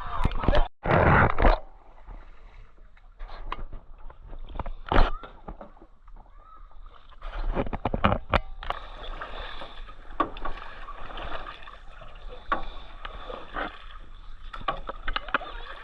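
Water splashing and sloshing around a paddled small boat on a river, with scattered sharp knocks and clicks. A steady hiss of moving water comes in about halfway through.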